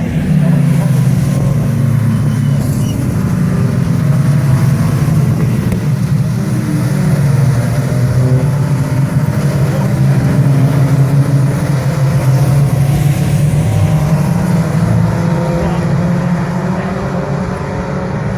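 Several racing saloon car engines running hard as the field goes by. The overlapping engine notes climb and drop in pitch with gear changes and passes, over a steady low drone.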